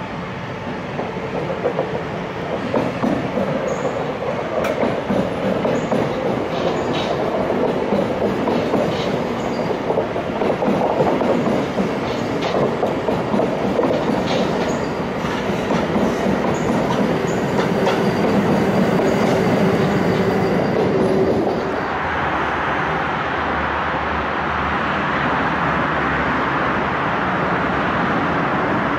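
SBB passenger coaches running past close by, the wheels clattering over rail joints and points with brief faint squeals. About two-thirds of the way through, the sound cuts abruptly to a steadier rushing noise of road traffic.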